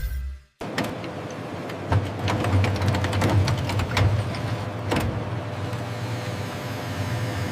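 Industrial machinery running: a steady low hum with many sharp clicks and rattles, starting after a brief dropout about half a second in.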